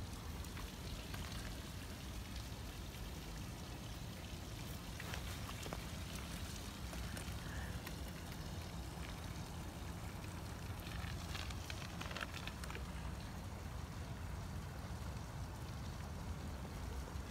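Steady low wind rumble on the microphone, with faint, scattered crunches of gravel under spiked platform high heels.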